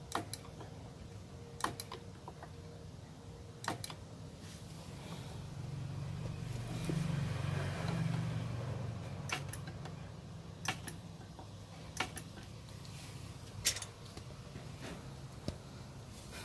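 Low steady hum that swells for a few seconds midway, with about eight sharp clicks and knocks scattered through it.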